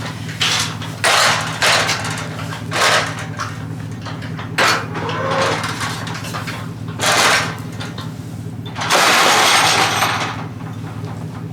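Metal livestock panels clanking and scraping as they are handled, in about six short crashes and one longer scrape of over a second near the end, over the steady hum of an idling engine.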